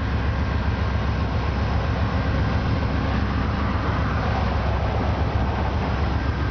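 Amtrak GE P42DC diesel locomotive's 16-cylinder engine running with a steady low rumble as the passenger train starts to depart.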